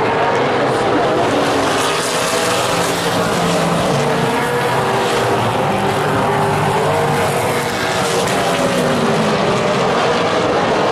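A pack of Super Late Model stock cars racing, their V8 engines running loud and steady, with the engine pitch rising and falling as the cars pass.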